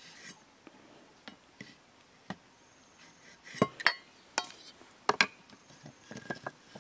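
Large knife working bamboo: irregular sharp taps and knocks of the blade on the bamboo, with a short scrape at the start; the loudest come as quick double knocks about halfway through and again about a second and a half later, some with a brief metallic ring.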